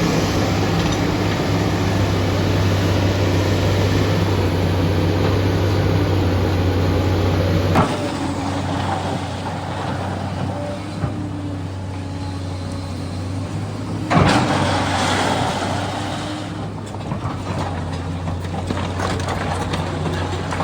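SANY excavator's diesel engine running steadily with a deep drone while it works. The sound drops and changes abruptly about eight seconds in, and there is a brief clunk about fourteen seconds in.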